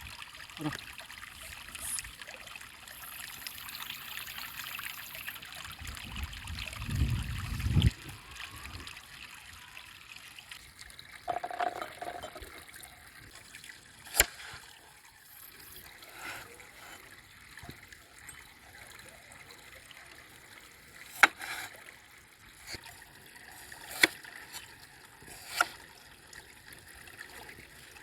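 Running river water trickling steadily, then dropping back after about ten seconds. A low rumble lasts a couple of seconds, and later four sharp clicks or knocks are heard, spaced a few seconds apart.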